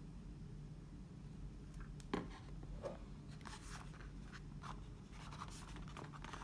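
Hands handling a smartphone's cardboard retail box: a sharp tap about two seconds in, then light scraping and rubbing of the cardboard.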